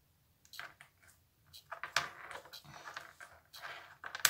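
Light handling noise of small epoxy resin pieces and a sticker being pressed and moved on a cutting mat: irregular soft clicks and rustles, with one sharp click near the end.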